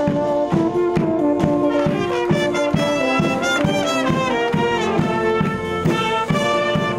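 Military brass band marching and playing a lively tune: trumpets, saxophones, clarinets and a euphonium over a bass drum beating about twice a second.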